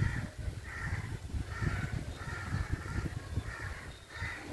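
A crow cawing over and over, about seven short caws at a steady pace, over a low, uneven rumble.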